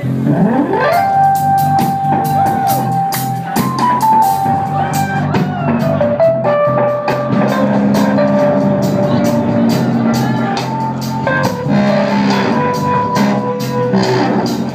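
Live dub band playing: a steady bass line and drum hits under keyboard tones that slide up in the first second, then hold and glide between notes.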